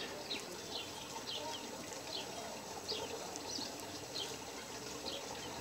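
Baby chicks peeping: scattered short chirps that fall in pitch, about two a second.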